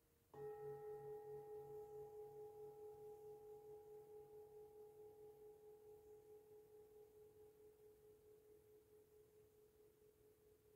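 A singing bowl struck once about a third of a second in, ringing on in one low tone with fainter higher overtones and slowly fading, its loudness wavering in a steady pulse.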